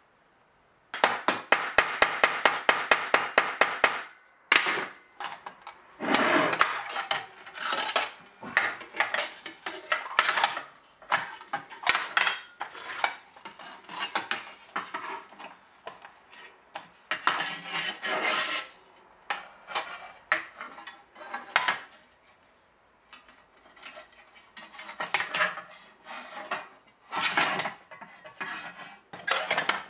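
Steel armour plates clinking, clanking and scraping as they are handled and worked on a metal bench. About a second in comes a quick run of sharp metal taps, about five a second for some three seconds; the rest is irregular knocks and scrapes.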